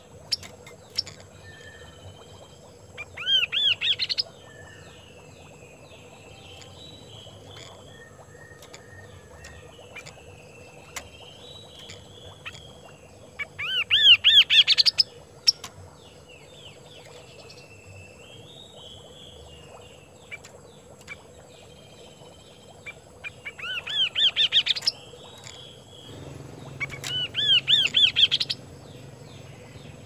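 Chestnut-capped babbler (kaso-kaso) singing: four loud phrases of fast, rapidly repeated whistled notes, each a second or two long, with softer warbling notes between them.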